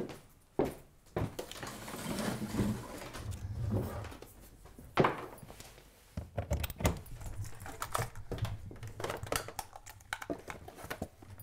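An iMac being carried, bumped and set down on a desk: rustling and knocks, with a loud thump about five seconds in. In the second half, quick light clicks and rattles as the keyboard and cables are handled.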